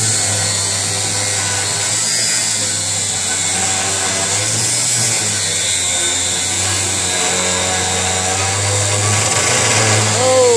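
Angle grinder cutting through a steel bar, a steady grinding hiss over the tool's motor hum, held without a break.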